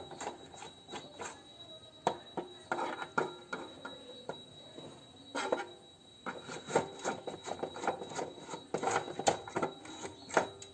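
Screwdriver turning screws out of an old cassette tape recorder's casing: irregular scraping and clicking.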